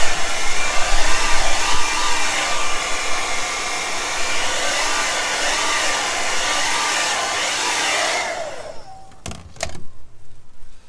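Handheld hot-air blower running steadily to dry freshly sprayed paint, its pitch wavering slightly as it is moved about. It switches off about eight and a half seconds in, followed by a couple of clicks.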